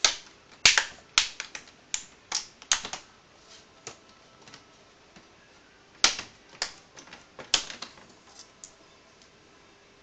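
Plastic snap clips of an MSI CR500X laptop's screen bezel clicking loose as the bezel is pried off the display with fingers and a screwdriver: a quick run of sharp clicks and snaps, then a pause, then another run about six seconds in.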